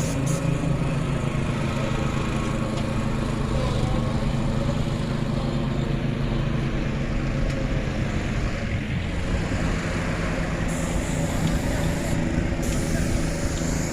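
Boat engine running steadily at an even pitch while under way.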